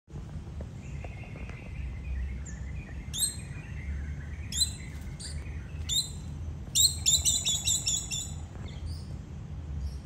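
Parrots in a mango tree giving short, harsh calls: single calls a few seconds apart, then a rapid run of about eight. A fainter, higher trill of another bird comes early on top of a steady low rumble.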